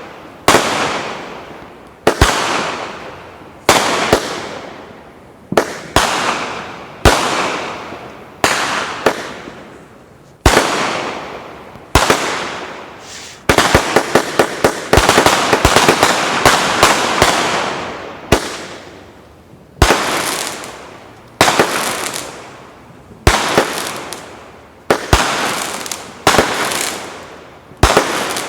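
A 100-shot, 500-gram consumer fireworks cake firing. Sharp shots come every second or two, each with a fading crackly tail, and a fast barrage of shots runs from about halfway through for four seconds.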